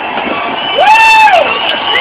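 Crowd of spectators cheering at a fireworks show, with one loud whoop that rises and falls in pitch about a second in.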